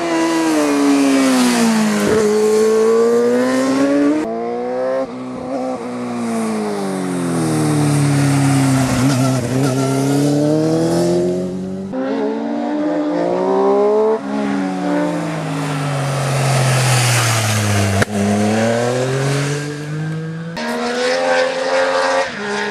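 Racing motorcycles accelerating hard up a hill-climb course and passing one after another, the engine pitch climbing and dropping again and again with gear changes and passes. The sound cuts abruptly to a different bike a few times.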